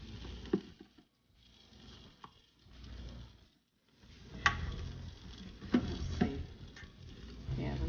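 Metal kitchen tongs clicking and scraping against the basket of an Instant Pot air fryer as chicken wings are turned over, with a few sharp clicks spread through and soft shuffling between them.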